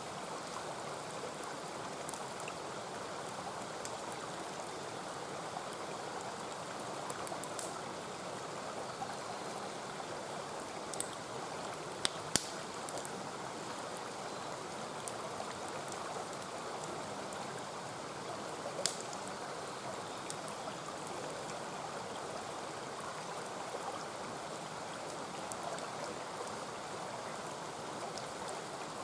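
Mountain stream flowing steadily, a constant rushing of water, with a few sharp pops and crackles from a wood campfire scattered through it, two close together about twelve seconds in and another near nineteen seconds.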